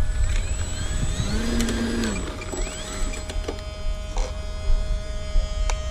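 Electric motor and propeller of a foam RC Stinson Reliant model plane throttled up and back down as it taxis. Its whine rises and falls twice in the first three seconds, with a few short clicks.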